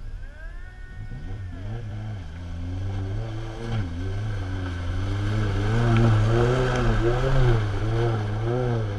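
Jeep engine revving up and down repeatedly while pulling through deep mud, getting louder as it comes close, with the revs rising and dropping about once a second in the second half.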